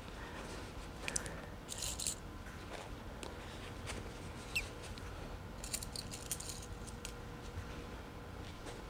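Faint rustling of fabric being handled and pinned, with a few brief soft scratches and clicks scattered through it.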